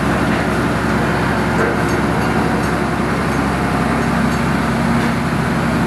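Diesel engine of a truck-mounted concrete boom pump running steadily with a low hum.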